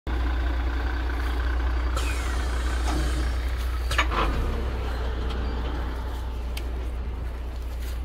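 Forest-service fire tanker truck's engine running with a steady deep hum, easing slightly towards the end, with a few sharp clicks or knocks around the middle.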